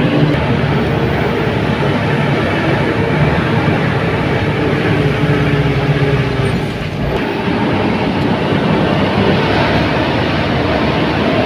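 Truck engine running steadily under load on a steep uphill climb, heard from inside the cab with road and wind noise. There is a short lull about seven seconds in.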